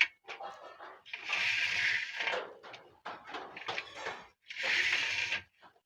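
Curtain runners sliding along an aluminium curtain track as the cord is worked. There are two scraping swishes of about a second each, one soon after the start and one near the end, among small clicks and knocks of the track hardware.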